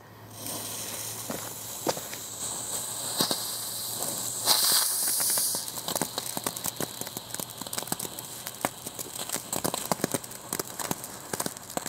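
Weco Crazy Chicken novelty ground fountain burning: a spraying hiss that catches about half a second in and is loudest around the middle, then turns to dense crackling, which stops at the very end.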